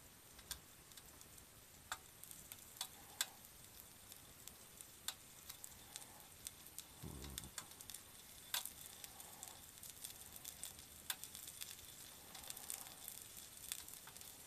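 Frozen nori-wrapped chicken karaage patties sizzling faintly on an electric hot plate while they are turned to grill the other side, with scattered sharp ticks and pops throughout and a brief soft low bump about halfway through.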